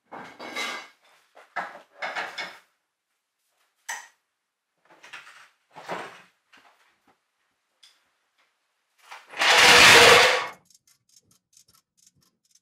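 Short clanks and scrapes of a trolley jack being worked under a boat hull on a concrete floor. Later comes a loud rushing noise lasting about a second, then a run of fast light ticks.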